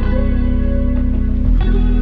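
Background music: soft instrumental with sustained chords and a deep bass, changing chord about one and a half seconds in.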